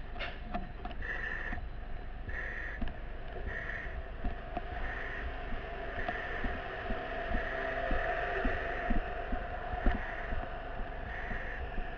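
Firefighter breathing hard through a breathing-apparatus mask, the air valve hissing in regular pulses about once a second, with scattered footsteps and knocks of gear.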